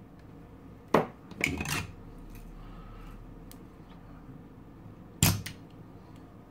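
Spring-loaded solder sucker (desoldering pump) clicking: a sharp click about a second in with a short rattle after it, then a second sharp snap about five seconds in as the plunger is released to suck molten solder off a transformer pin.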